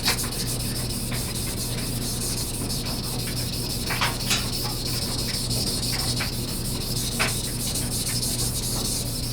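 Knife blade being ground on a wet sharpening stone in quick, even back-and-forth strokes, a steady gritty scraping: thinning the knife's primary grind. A few sharper clicks stand out partway through.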